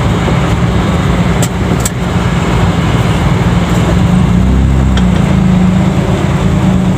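Cabin sound of a Daihatsu Charade G10: its small three-cylinder engine running at low road speed with street traffic around it. Two light clicks come about a second and a half in.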